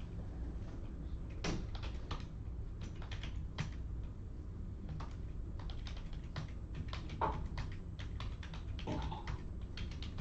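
Typing on a computer keyboard: scattered, irregular key clicks and taps over a steady low hum.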